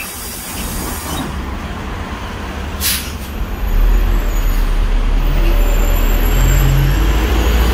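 Daewoo NEW BS090 city bus with its Doosan GL08P natural-gas engine: a short hiss of compressed air just before three seconds in. Then the engine's low rumble gets much louder about four seconds in and stays loud as the engine revs up.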